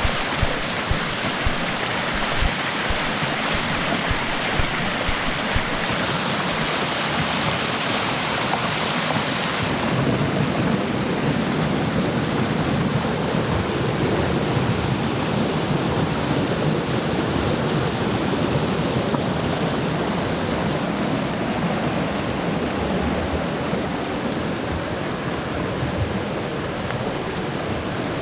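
Rushing water of a mountain stream swollen by rain, a steady roar. About ten seconds in it turns deeper and duller, and stays that way.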